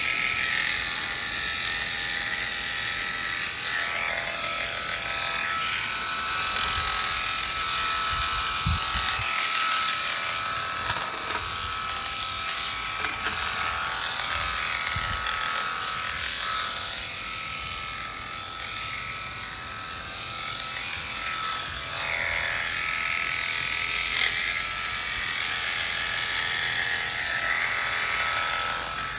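Premier One electric sheep-shearing clippers running steadily, the cutter buzzing through the wool.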